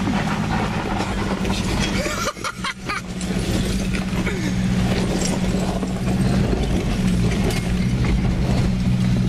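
Nissan Patrol's diesel engine pulling steadily under load on a steep, loose shale slope, with tyres crunching over stones. It eases off briefly about two and a half seconds in, then pulls again a little louder.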